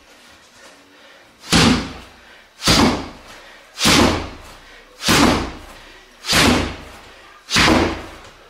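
Downward elbow strikes (empi otoshi uchi) landing on a stack of rubber car tyres: six heavy thuds about every 1.2 seconds, each followed by a short noisy tail.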